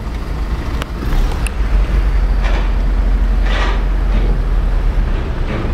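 Car driving, heard from inside: a steady low rumble of engine and road noise, with two brief hissy swells about a second apart past the middle.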